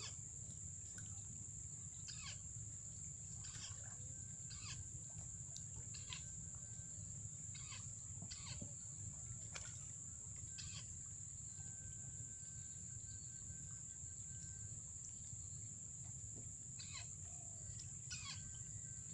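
Outdoor ambience: a steady high insect buzz with scattered short bird calls over a low rumble.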